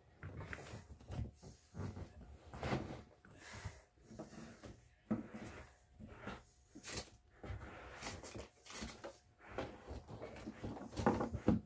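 Irregular rustling, clunks and knocks of household items being handled and moved around while a bedroom is tidied, with the loudest clatter near the end.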